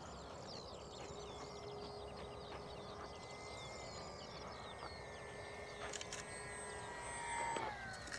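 The brushless electric motor and propeller of a small RC flying wing run faintly, the pitch sliding down as the motor is throttled back for landing, and the sound stops near the end. Many birds chirp throughout, over low wind noise.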